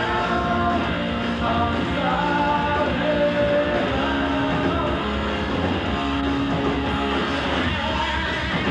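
Live rock band playing: electric guitars and a drum kit, with a man singing held notes into the microphone over them.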